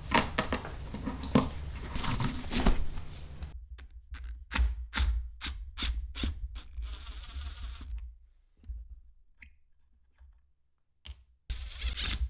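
Hands working on an old upholstered chair: scratching, tearing and scraping of fabric and stuffing, then a run of sharp clicks and knocks, about three a second, with a short hiss. After that it falls nearly quiet, with only a few faint taps.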